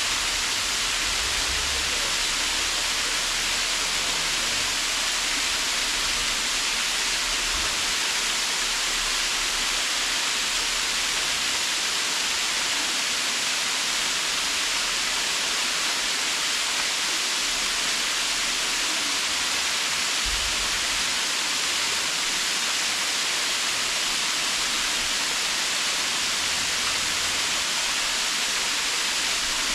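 Waterfall rushing steadily: a dense, even hiss of falling water with no let-up.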